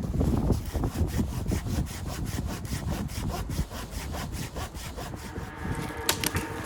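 Saw cutting through wood with steady, even back-and-forth strokes. A couple of sharp knocks come near the end.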